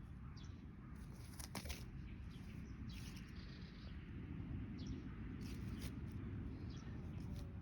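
Small birds chirping now and then in short, scattered high calls over a steady low rumble.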